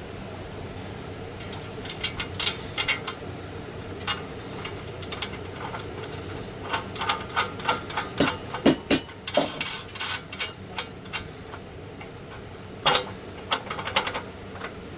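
Irregular knocks and clanks from parts and tools being handled while an industrial sewing machine stand is assembled, coming in short clusters that are densest in the middle, over a steady low hum.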